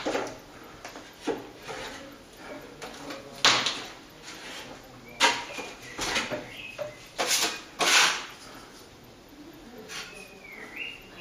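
Steel plastering knife scraping and knocking as cornice cement is spread onto timber blocks on a plaster ceiling panel, a handful of sharp scrapes a second or two apart.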